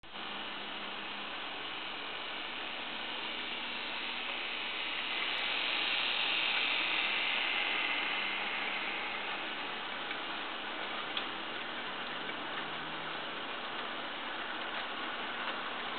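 Model railway freight train hauled by an SBB Cargo Ae 610 model electric locomotive rolling past: a steady whir of the motor and wheels on the track, swelling as the locomotive passes about six seconds in. Later come sparse clicks of the wagon wheels over the rail joints.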